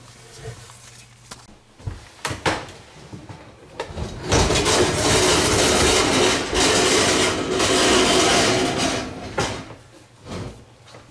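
Old dishwasher being dragged out of its cabinet opening, a loud scraping slide lasting about five seconds, with a few knocks before it and one near the end.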